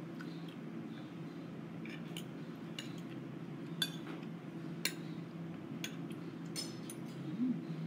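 Metal spoon and fork clinking and scraping against a plate, sharp separate clinks about once a second, over a steady low background hum.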